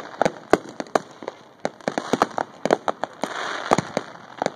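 Consumer fireworks going off all around: many sharp cracks and pops at an uneven pace, from crackling aerial bursts and mortars. A stretch of hissing rush comes about three seconds in.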